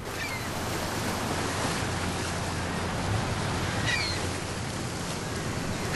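Sea waves washing in a steady rush, with a few short high seagull cries: one just after the start, a pair around four seconds in, and more at the end. A low steady hum runs underneath.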